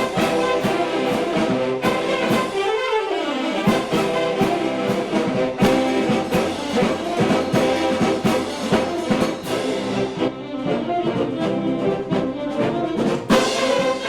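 Mummers string band music: saxophones, banjos and accordions playing with drums. A swooping run goes up and back down in the first few seconds. The sound thins out for a few seconds near the end, then the full band comes back in with a loud accent.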